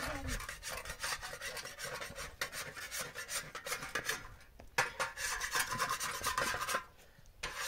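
A metal spatula scraping across a hot iron saj griddle in quick repeated strokes as flatbread is turned on it, with a short pause about four seconds in and another near the end.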